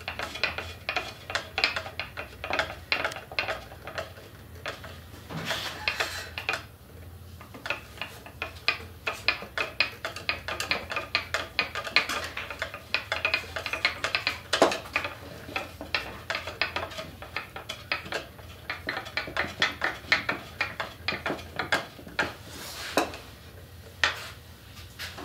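A screw being turned in by hand with a screwdriver, up through a wooden base plate into a deer skull: a long run of short clicks and scrapes, several a second, with brief pauses.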